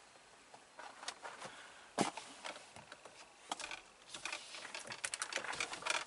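Irregular light clicks and taps of hands on a car's dashboard buttons and touchscreen. There is one sharper click about two seconds in and a quicker run of clicks in the last two seconds.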